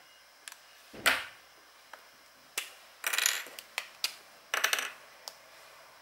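Plastic felt-tip pens and their caps handled on a desk: a series of sharp clicks and knocks, with two short rattling clatters in the middle, as pens are uncapped, capped and set down.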